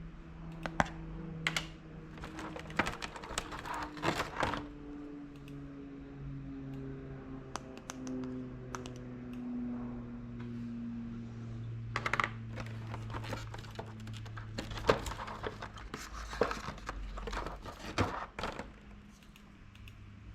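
Small plastic toy pieces being handled, clicking and clattering against each other and a hard surface in two flurries, with a low steady hum underneath.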